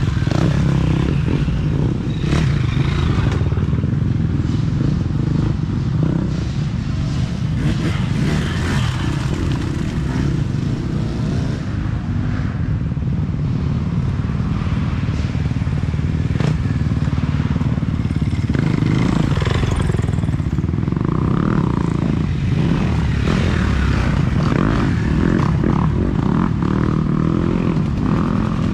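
Dirt bike engines running on a wooded trail: a steady low engine rumble throughout, with bikes revving as they pass now and then.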